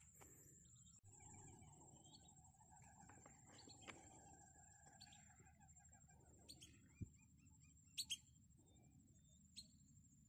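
Faint bird chirps and calls, the loudest a quick pair of sharp chirps about eight seconds in, over a steady high-pitched tone and a low background hush.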